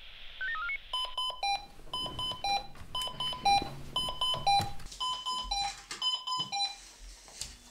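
Fire brigade radio pager going off at the nightstand. A short run of stepped rising tones is followed, about a second in, by a fast beeping alarm alternating between two pitches, which stops shortly before the end. It is the signal calling the volunteer firefighter out to a callout.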